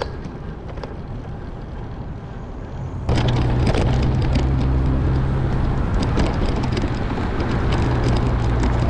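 Wind rushing over the microphone and a bicycle rattling over city pavement while riding, with a steady low hum underneath. It gets much louder suddenly about three seconds in.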